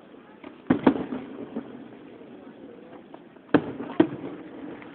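Fireworks shells bursting overhead: two sharp booms close together under a second in, then two more about three and a half and four seconds in, each with a short echoing tail.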